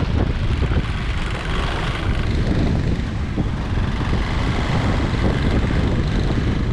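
Wind buffeting the microphone in a steady, heavy rush, with a gusty low rumble and no clear engine note.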